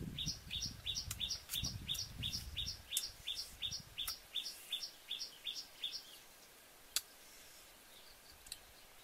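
A bird calling a rapid run of short, high chirps, about three a second, which stops about six seconds in. Leaves rustle under handling during the first few seconds, and a single sharp click comes near the end.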